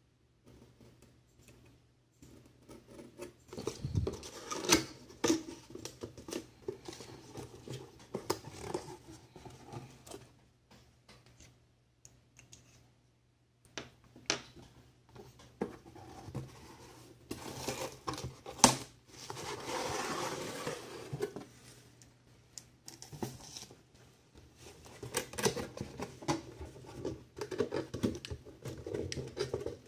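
A cardboard figure box being slit open with a hobby knife and handled: the blade scraping and scratching on cardboard, scattered taps and clicks, and a longer sliding, rustling stretch about two-thirds of the way through.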